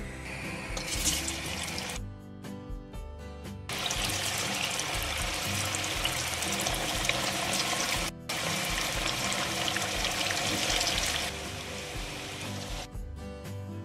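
Whole potatoes sizzling and bubbling as they deep-fry in hot oil in a pan. The sizzle is a steady hiss that starts about four seconds in, breaks off for a moment around eight seconds and fades near the end. Background music with guitar plays throughout.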